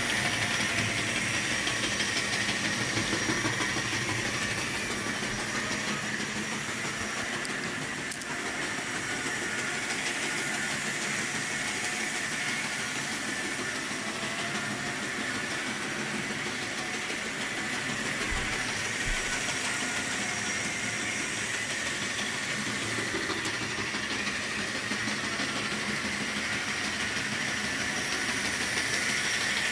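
Tyco HO-scale model train running on its track: a steady electric-motor whir with a hiss of wheels on rail, unchanging throughout.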